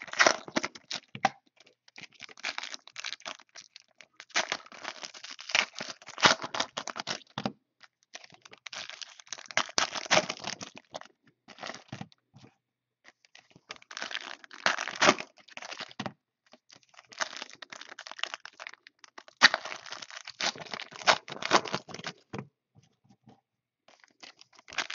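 Panini Select basketball card pack wrappers being torn and crinkled open by hand, in repeated bursts of crackling a second to a few seconds long with short pauses between. The packs are stubborn and hard to open.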